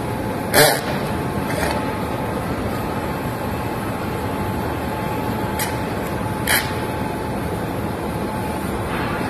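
Cordless drill boring a large hole through an aluminium intercooler pipe, heard over steady loud noise, with two short sharp high bursts, one just over half a second in and one about six and a half seconds in.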